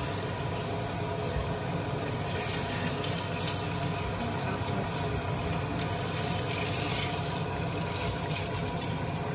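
Kitchen tap running steadily into a stainless steel pot, filling it with water over soaking moss.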